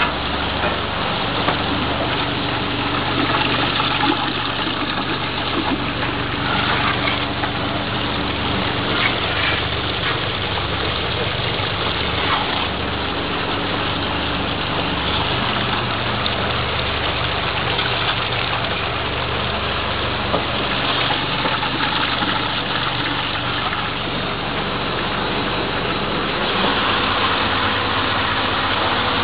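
Mineral-processing machinery running steadily: a constant machine hum over an even rushing noise, typical of concentrators and a mill working with water fed through hoses.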